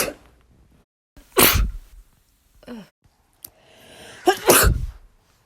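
A woman sneezing: two full sneezes, one about a second in and one near the end, the second preceded by a rising drawn-in breath and a voiced "ah" before the explosive burst. The tail of an earlier sneeze dies away at the very start.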